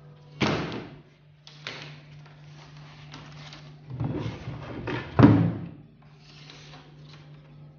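Handling noise from a white PVC edgebanding strip and a laminated MDF board on a workbench: the plastic strip rattles as it is unrolled and waved, and the board is lifted and stood on its edge with a knock just after five seconds in, the loudest sound. A low steady hum runs underneath.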